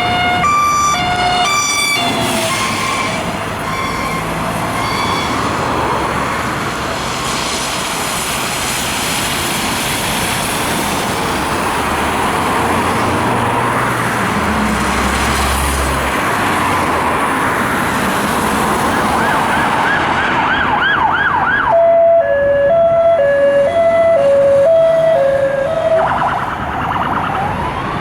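British emergency vehicles' electronic sirens: a hi-lo two-tone alternating between two notes at the start, then fading under loud passing road and engine noise. Later comes a brief fast yelp, then a lower-pitched two-tone alternating for a few seconds, and near the end a rising wail.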